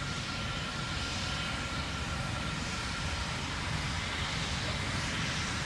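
Steady, noisy rumbling roar of the Terran rocket's first-stage engines in powered ascent, heard from far off.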